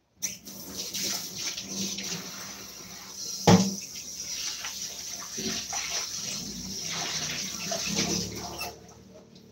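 Water running from a kitchen tap into a steel sink while a frying pan is rinsed, turned on just after the start and off near the end, with one sharp knock of the pan against the sink about three and a half seconds in.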